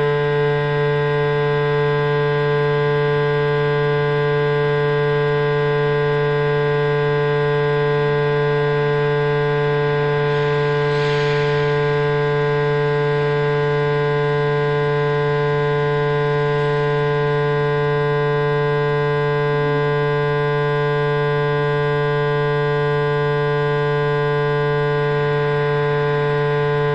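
A sound installation's steady drone: a low hum with a strong higher tone and many overtones stacked above it, unchanging in pitch and level. A brief soft hiss rises over it about eleven seconds in.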